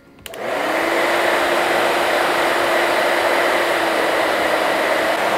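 Handheld hair dryer switched on with a click, spinning up and then blowing steadily with a constant hum and whine, its air blowing into a plastic spiral wave diffuser holding a lock of hair.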